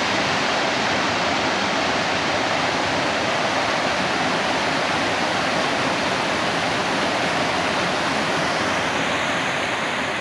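Rain-swollen creek running fast over rocks: a loud, steady wash of water noise with no breaks, the creek running high after heavy rain.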